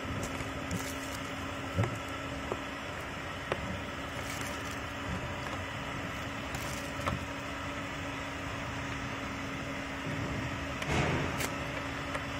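Steady background hum with a constant low tone, like a fan or machine running, with a few faint clicks as an Allen key turns a bolt, and a short louder rustle about eleven seconds in.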